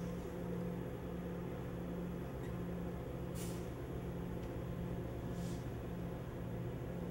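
Steady diesel hum from a standing VIA Rail passenger train idling, with two brief hisses about three and a half and five and a half seconds in.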